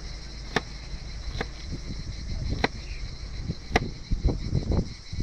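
Sharp knocks of a knife on a cutting board, four clear strikes about a second apart and softer low knocks near the end, as vegetables are cut for menemen. A steady high insect chorus runs underneath.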